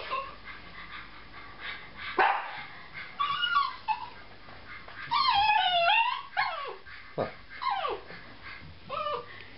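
Bichon frise barking and yipping in agitation: a string of short high barks, with a long wavering cry about five seconds in.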